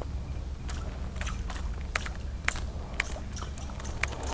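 Irregular sharp clicks and ticks as a topwater lure is twitched and retrieved on a baitcasting rod and reel, over a steady low rumble.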